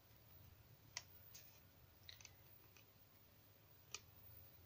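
A few faint, sharp clicks of thin metal lace-frame cutting dies being handled and pulled apart, about a second or so apart, the last one near the end.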